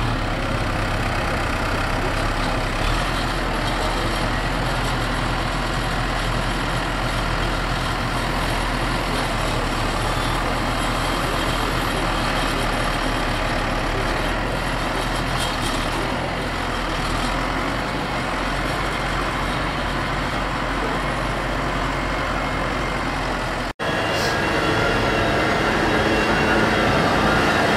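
Tractor diesel engines running steadily while working a silage pit. A brief dropout comes about three-quarters of the way through, after which a New Holland T7.270 with a front buck rake is heard close by and a little louder.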